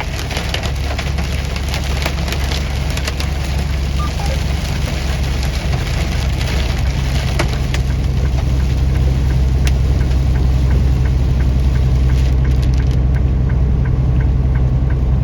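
Inside a moving vehicle: a steady low engine and road drone, with hailstones striking the body and windshield as scattered sharp clicks that thin out after the first few seconds. Faint evenly spaced ticking near the end.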